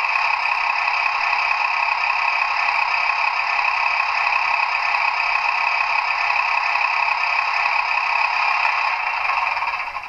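Sound decoder of a Trix H0 model of the DB class 724 Uerdinger railbus playing its diesel engine running sound at standstill through the model's small speaker: steady and thin, with no bass. It dies away near the end.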